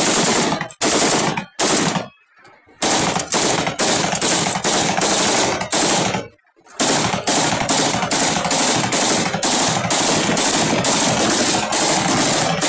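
AK-47 assault rifle firing on full automatic. A few short bursts come first, then a pause about two seconds in, then a long burst of rapid shots. After a brief break about six seconds in comes another long, sustained burst.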